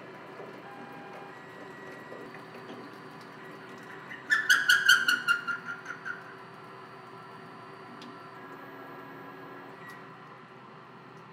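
A 3/4-inch carbide end mill spinning in the Tormach 15L lathe's chuck, cutting through a turret boring bar holder over a steady machine hum. About four seconds in, the cut gives a loud burst of high-pitched ringing in quick pulses, about five a second, which dies away over about two seconds: the end mill chattering as it plunges.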